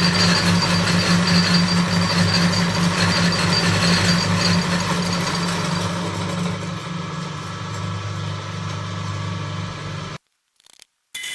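Small milling machine running with a steady motor hum and a thin, intermittent high whine in the first few seconds; it cuts off abruptly about ten seconds in.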